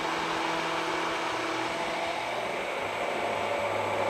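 Hand-held immersion blender running steadily in a tall cup. It is whipping egg, mustard, gochujang and oil into an emulsified mayonnaise.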